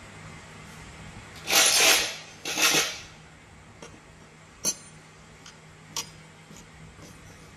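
Metal gearbox parts being handled on a workbench: two short, loud bursts of noise, then two sharp metallic clinks, over a low steady hum.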